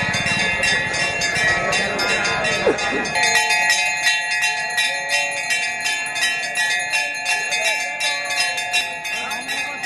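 Temple bells rung rapidly and continuously, about five strikes a second, each ringing on over the next. A second, lower-pitched bell joins about three seconds in.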